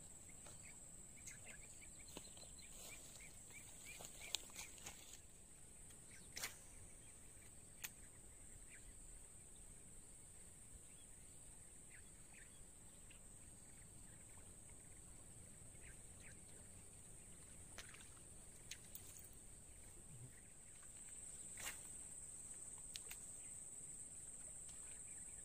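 Quiet outdoor ambience: a steady high-pitched insect drone, a little louder near the end, with a few scattered sharp clicks and taps.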